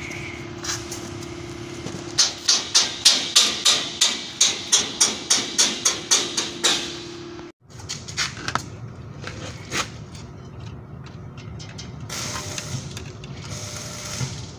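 Rapid, evenly spaced hammer blows, about four a second for roughly five seconds, over a low steady hum, followed by a few scattered knocks and clicks.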